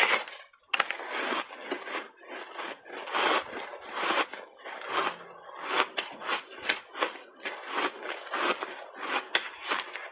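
Ice blocks coated in matcha powder crunching between the teeth. A sharp crack comes under a second in as a big bite snaps off, then steady chewing crunches follow, about three a second.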